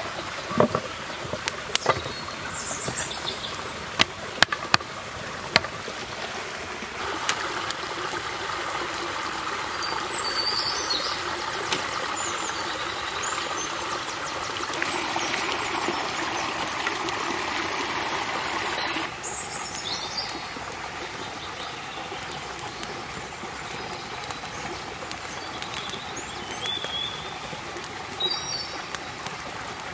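A forest stream running steadily, louder for a stretch in the middle, with a few sharp snaps in the first several seconds and birds chirping now and then.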